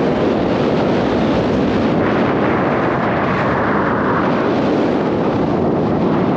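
Wind buffeting the microphone of a camera on a moving bicycle: a loud, steady rumbling rush with no break.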